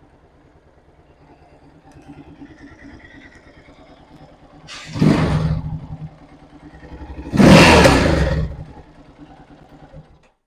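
Yamaha XT660R's single-cylinder four-stroke engine idling with an even low pulse. It is revved twice: a short blip about five seconds in, then a longer, louder rev around eight seconds, before dropping back to idle.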